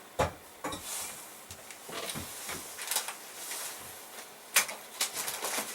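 Camping gear being handled: a string of short knocks and clicks with light rustling between them, the sharpest knock just after the start and another a little past halfway.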